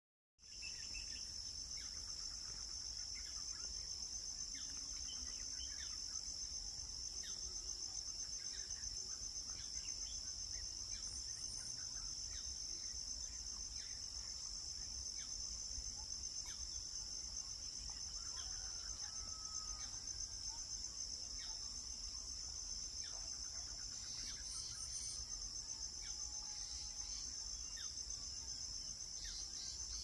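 Steady high-pitched insect chorus, a continuous fast-pulsing trill. A couple of faint short whistles sound in the second half, over a low rumble.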